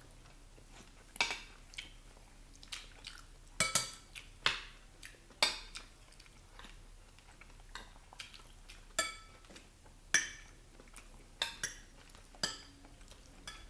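Cutlery clinking and scraping against plates and bowls while eating: about a dozen irregular sharp clinks, a few ringing briefly.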